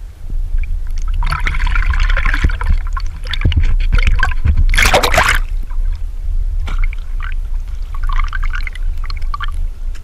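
Water sloshing and gurgling in irregular bursts over a steady low rumble, loudest about five seconds in.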